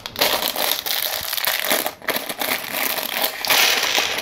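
A thin clear plastic bag of LEGO pieces crinkling loudly as it is opened and emptied, with small plastic bricks rattling and spilling out onto the table.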